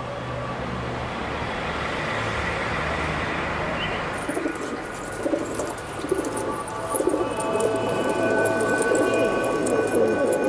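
Outdoor ambience with birds cooing, fading in as the opening of the soundtrack's song. Several steady held tones join in about seven seconds in.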